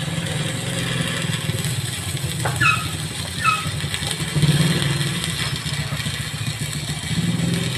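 Small engine of a Kawasaki 200-ampere engine-driven welding generator running steadily during a test run, with a pulsing low hum and a steady hiss over it.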